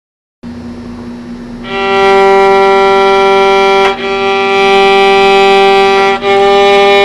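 Violin bowed while a knife blade stops the string, for divisions of pitch smaller than a semitone. A soft low note starts about half a second in, then a loud higher note is held with two brief breaks at the bow changes.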